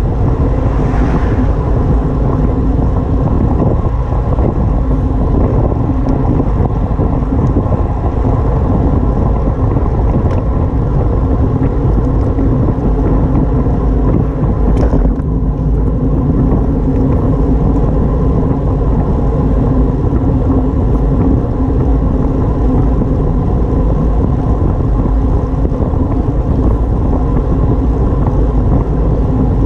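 Steady rush of wind buffeting the microphone of a camera on a bicycle moving at speed.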